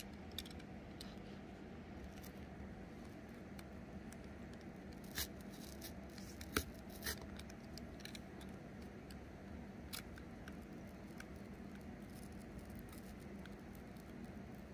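Craft knife cutting through cardboard: faint scratching strokes with a few sharp clicks, over a steady low hum.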